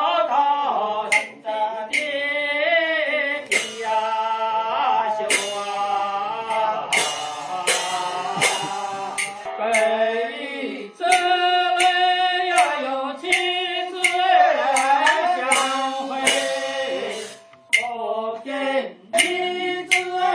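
Daqiang opera singing: one voice sings long held and wavering notes, punctuated by sharp, irregular drum strikes from the accompanying percussion.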